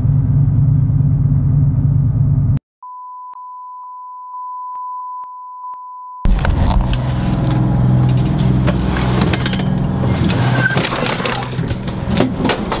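A low steady drone cuts off about two and a half seconds in. A steady single-pitch beep like a warning tone follows for about three seconds. Then the yacht's engine drone returns, louder, with the rush of wind and sea and frequent knocks and rattles as the boat moves through rough water.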